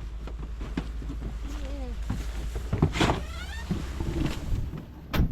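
People climbing into a vehicle: knocks and shuffling with brief bits of voice over a steady low hum. The vehicle's door shuts with a thump about five seconds in.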